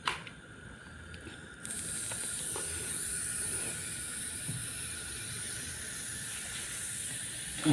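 CRT television picture tube and chassis being powered up for a test: a click at the start, then about two seconds in a steady high hiss comes on suddenly and holds.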